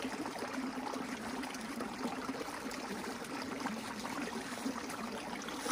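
Shallow stream running steadily over rocks.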